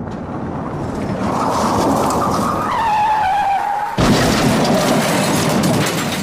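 Recorded car-crash sound effect: a vehicle rushing closer, a tyre screech that falls in pitch about three seconds in, then a sudden loud crash about four seconds in, with rumbling noise after.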